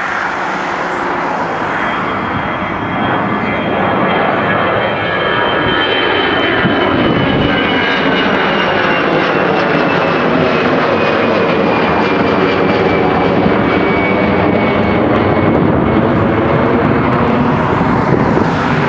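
Airbus A320's twin turbofan engines at climb power just after take-off, passing overhead: a loud, steady jet roar with a high whine that slowly falls in pitch as the airliner passes and moves away.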